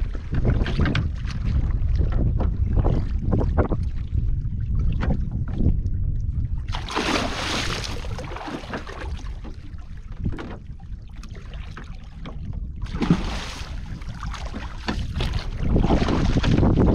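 Wind rumbling on the microphone, with bursts of splashing as a hooked fish thrashes at the surface beside a wooden boat: one long burst about seven seconds in, a shorter one around thirteen seconds and another near the end.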